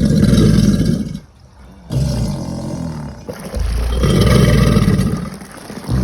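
American alligators bellowing: a series of about three deep, rumbling bellows, each lasting a second or two, with short pauses between them. This is the alligator's bellow call, typical of the mating season.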